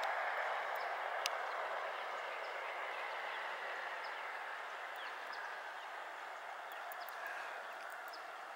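Steady outdoor background noise, an even hiss that slowly fades, with faint short chirps and a few sharp clicks over it.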